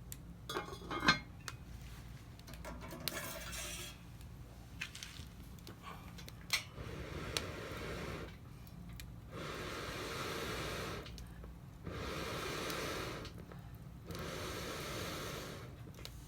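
Utensils clinking against a dish a few times, then four separate rushes of hissing noise, each about a second and a half long with short gaps between them.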